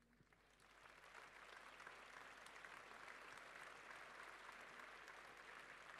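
Large crowd applauding, faint, building over the first second and then holding steady.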